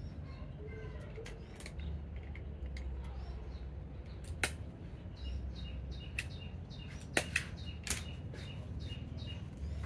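Small birds chirping in the background with a low rumble, and a handful of sharp clicks and crackles from about halfway through as a baby monkey's disposable diaper is handled and fastened.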